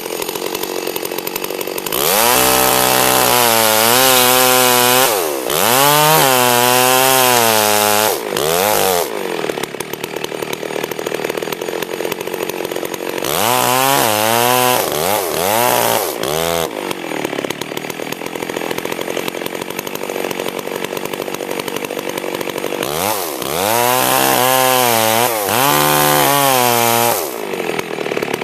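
Two-stroke chainsaw idling, then revving to high speed in three long spells with idle between, its pitch sagging and rising within each spell as if working in a cut.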